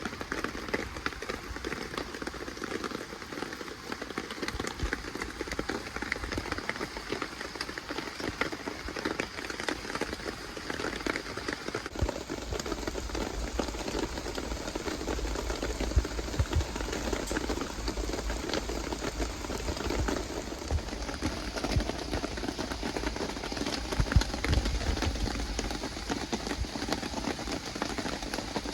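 Steady rain falling, a dense patter of drops with a few louder taps and low bumps.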